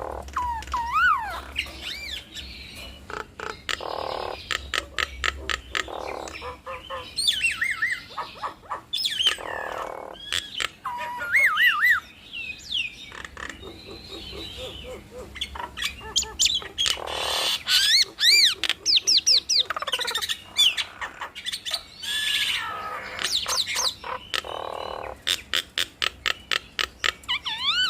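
Two jalak nias mynas calling in a duet: a busy, varied mix of loud whistles that warble up and down, rapid clicking runs and harsh rasping squawks.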